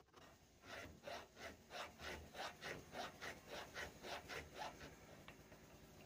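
Hand file rasping back and forth in the hole of a CNC spindle's connector cap, enlarging the hole, in a steady run of about three to four strokes a second that stops shortly before the end.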